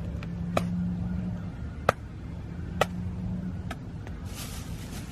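Kale leaves being slapped to knock aphids off: four sharp slaps about a second apart, over a faint low steady hum.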